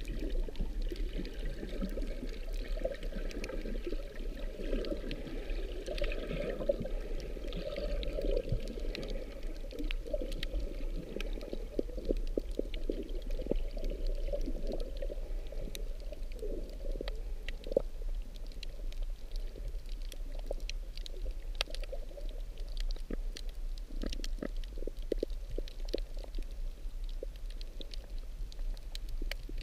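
Muffled underwater sound of water moving around a camera held just below the surface, a steady low sloshing rumble with scattered faint clicks throughout.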